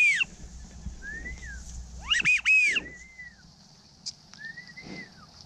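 Wigeon whistles: short, high whistles that rise and fall, several overlapping in two loud bursts at the start and about two seconds in, with softer single whistles between them and near the end.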